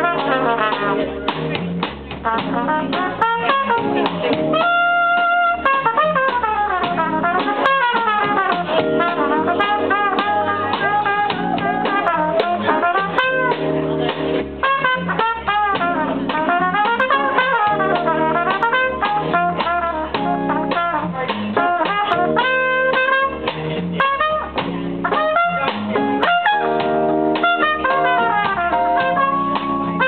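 Live band music: a trumpet plays a melodic line over guitar and drums.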